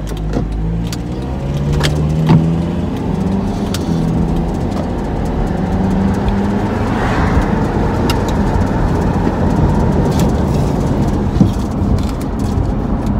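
Car engine pulling away with its pitch rising over the first few seconds, then steady engine and road noise while driving, heard from inside the car.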